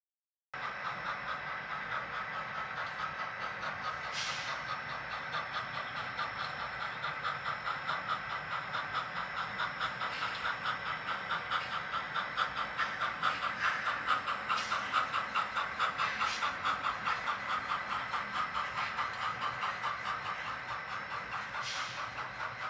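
Sound decoder (Tsunami2) in a brass model Santa Fe 2-8-0 steam locomotive playing rhythmic steam exhaust chuffs as the train runs, with a few brief clicks.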